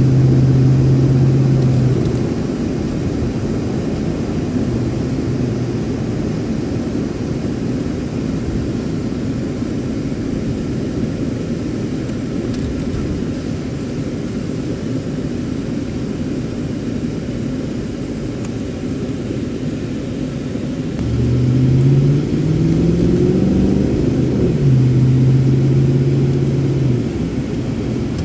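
Car engine and tyre rumble heard from inside the cabin of a moving car. The engine hum drops away about two seconds in as the car cruises. Near the end the car accelerates, its engine note climbing in steps before it levels off.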